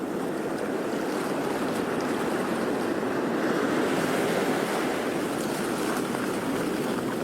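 Sea waves on a shore: a steady wash of surf that swells slightly in the middle.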